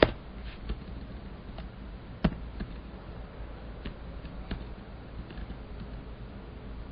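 Scattered clicks of a computer keyboard and mouse, with a sharp click at the start and another about two seconds in, over a low steady hum.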